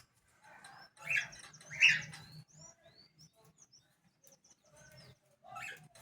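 Birds chirping: two louder calls about one and two seconds in, then a run of short, high, sweeping chirps.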